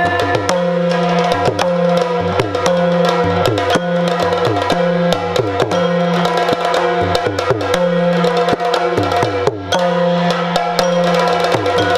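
Yakshagana ensemble music without singing: drums played in a fast, dense rhythm over a steady drone.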